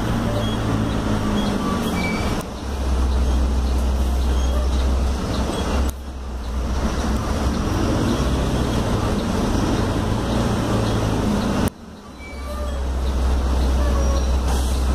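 Diesel engine of a Mercedes-Benz OF-1721L city bus running under load. Its sound dips briefly three times, about two and a half, six and twelve seconds in, and builds back up each time as the gears are changed.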